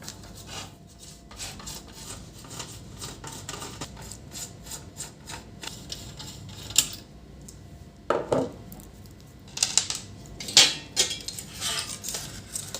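Scattered clicks, taps and clinks of a laser printer's power supply and its casing being handled and opened, with louder knocks about eight seconds in and a busier run of clatter near the end.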